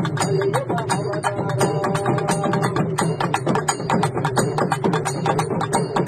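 An urumi melam ensemble of Tamil hourglass drums and other drums plays a fast, dense rhythm. Short sliding drum tones repeat over the strokes.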